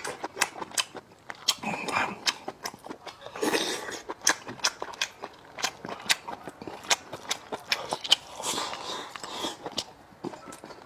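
A person chewing food close to the microphone, with many sharp, wet mouth clicks and smacks.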